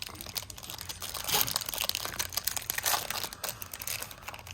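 Foil Pokémon booster pack wrapper crinkling as it is handled, an irregular crackle that is busiest from about one to three seconds in.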